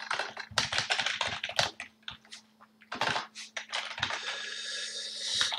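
Typing on a computer keyboard: a quick run of keystrokes for about two seconds, a pause, then a few more keystrokes. A soft steady hiss fills the last second and a half.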